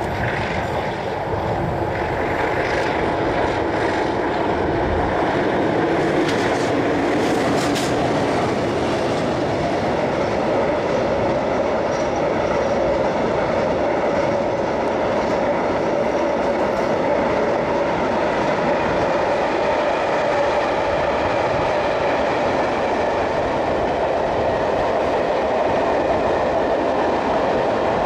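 Two MLW diesel-electric locomotives hauling a freight train pass close by in the first few seconds, then the long string of loaded container wagons rolls past with wheels clattering over the rail joints and a steady whine.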